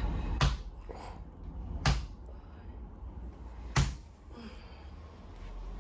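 Three sharp slapping strikes on a patient's back, spaced about one and a half to two seconds apart, from a forceful percussive manual spinal treatment.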